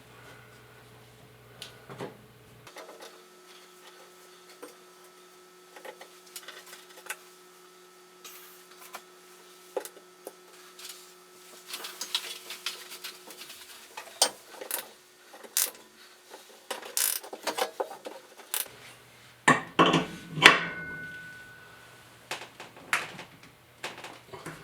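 Tools knocking and clattering against wood in scattered clicks and knocks, busier in the second half, with a few louder bangs about twenty seconds in, as the glued crack in a floor joist is drawn closed.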